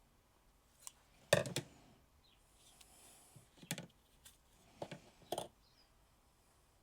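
About half a dozen small, sharp clicks and taps, spread out, from plastic action-figure parts and small tools being handled during a joint repair; the loudest is about one and a half seconds in.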